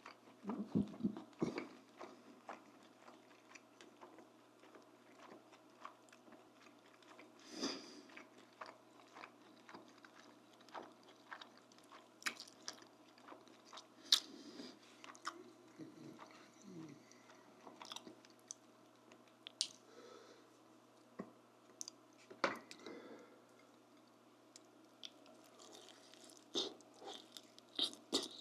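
Close-miked eating: a person chewing and biting food, with irregular crunches and small wet mouth clicks and smacks.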